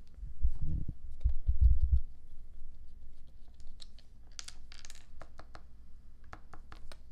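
Dull handling thumps against the tabletop for about the first two seconds, then a run of small sharp clicks and plastic crinkles as a small bottle of Loctite threadlocker is opened and dabbed out over a plastic parts bag.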